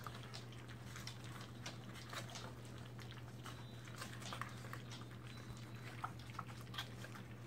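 A litter of standard poodle puppies lapping and smacking at puppy food liquefied with goat's milk in a metal feeding pan: a steady scatter of small, irregular wet clicks, over a low steady hum.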